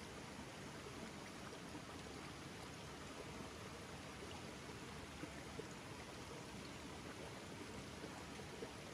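Stream water running steadily over rocks, with a few faint ticks about halfway through and near the end.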